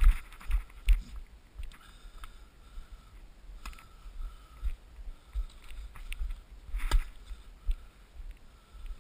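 Footsteps, knocks and handling noise from a tennis player moving about the court, picked up by a head-mounted camera with a low wind rumble, and a sharp tennis-ball strike about seven seconds in.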